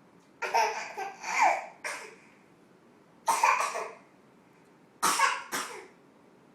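A baby laughing hysterically in short, breathy, cough-like outbursts: three in the first two seconds, one past the middle and a quick pair near the end.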